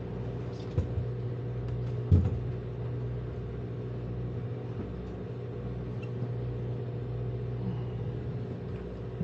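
A boat engine running steadily with a low hum, with a sharp knock about two seconds in and a softer one just before.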